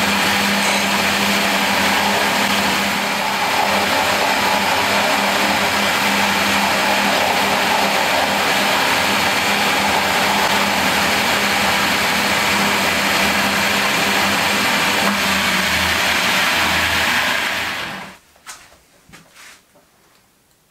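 Milling machine running steadily with an end mill cutting a brass casting, a constant motor hum under the cutting noise. It cuts off abruptly about three seconds before the end, followed by a few faint light taps.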